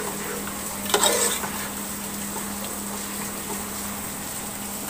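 Metal ladle stirring mutton and potatoes in masala gravy in a large aluminium pot, with a sharp scrape against the pot about a second in. After that the gravy keeps up a steady sizzle.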